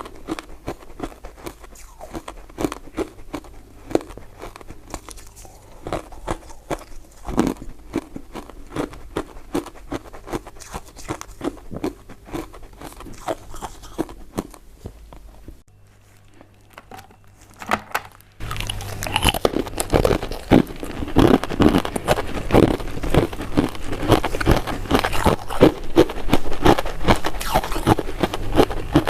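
Biting and chewing of soft, powder-coated mint sweets: a dense run of small clicking and smacking mouth sounds. It drops away for a couple of seconds a little past halfway, then comes back louder and busier.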